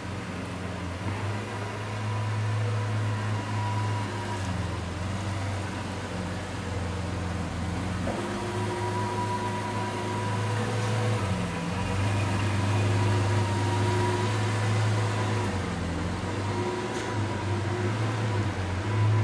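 Lamborghini Veneno Roadster's 6.5-litre V12 idling as the car creeps forward at walking pace: a steady low drone that dips and swells slightly a couple of times.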